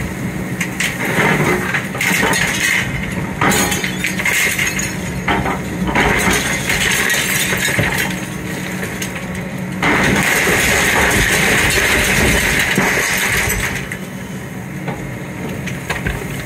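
Excavator pulling down a brick wall: bricks and debris crashing and clattering, with glass clinking and breaking, over the machine's running engine. The crashing grows louder for a few seconds past the middle as a section of the wall comes down.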